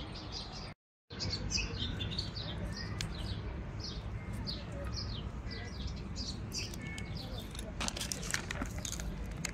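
Small songbirds chirping over and over in short, high notes, over a steady low outdoor background. The sound cuts out completely for a moment about a second in, and near the end a run of crackling rustles comes in, like dry leaves and twigs being stepped on.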